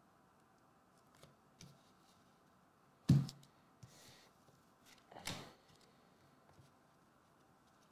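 Trading cards in clear plastic holders being handled and stacked on a table mat: light clicks, a sharp knock about three seconds in, then a second clatter about two seconds later.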